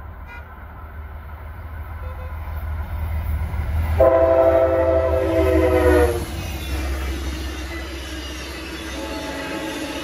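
Amtrak GE P32AC-DM diesel locomotive approaching at speed with a rising engine rumble, then sounding its multi-note horn in one blast of about two seconds, the chord sliding slightly lower as the locomotive passes. Afterwards the passenger coaches roll by.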